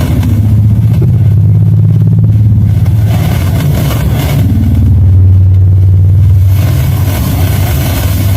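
Unexplained sound coming over an FM radio: a loud, deep, steady drone with overtones, its pitch shifting slightly about halfway through, while a band of hiss fades in and out every second or two.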